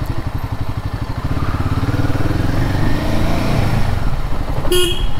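Royal Enfield Himalayan 450's single-cylinder engine running on the move, its pitch and loudness rising as it accelerates about two seconds in. A brief high tone sounds near the end.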